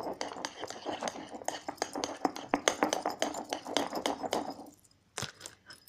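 A utensil stirring slime in a bowl, with fast, dense clicking and clinking against the bowl that stops almost five seconds in, followed by a few last taps near the end.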